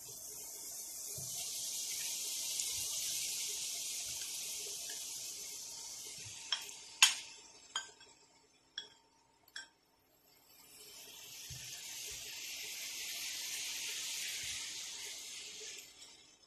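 Raw pork pieces sizzling in hot oil in a nonstick frying pan, a hiss that swells and then fades. Partway through comes a run of about six sharp clinks from the bowl and spatula knocking against the pan, and then the sizzling picks up again as the meat is spread out.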